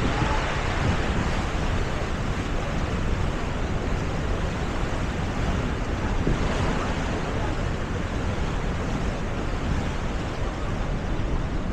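Niagara Falls' water giving a steady, even rushing noise, with wind buffeting the microphone.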